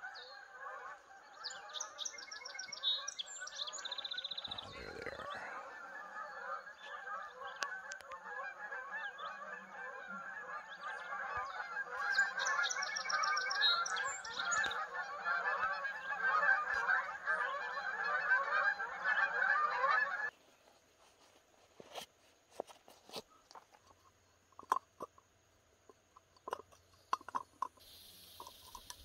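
A large flock of geese passing overhead, many birds honking continuously at once. The calling stops abruptly about twenty seconds in, and scattered light clicks and knocks follow as a gas-canister camp stove is set up.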